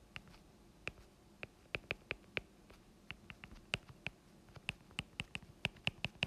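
Stylus tip tapping on a tablet's glass screen while handwriting, a quick irregular run of sharp little clicks, about four a second.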